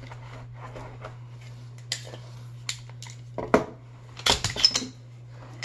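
Metallic clicks and clacks of a ZEV Dragonfly-built Glock 19 pistol being taken from its hard case and cleared, magazine out and slide worked. Scattered light clicks come first, then a cluster of sharper, louder clacks about four seconds in.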